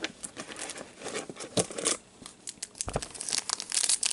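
Foil wrapper of a trading-card pack crinkling and crackling in gloved hands as the pack is opened, growing denser and louder near the end, with a soft thump about three seconds in.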